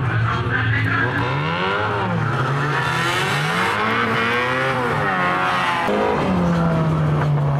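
Several 1500cc banger race cars revving and accelerating around a shale oval, their engine notes rising and falling and overlapping; near the end one engine holds a long, slowly falling note.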